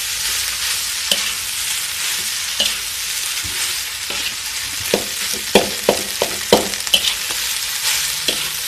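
Fried rice sizzling in a metal wok while a metal spatula stirs and scrapes through it, with sharp clinks of the spatula against the wok, most frequent about five to seven seconds in.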